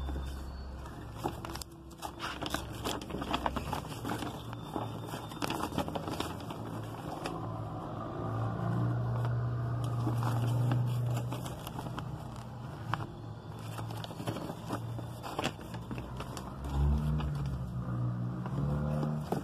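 Glossy pages of a paper sales catalog being handled and turned, with crinkling, rustling and scraping paper noises and scattered sharp clicks.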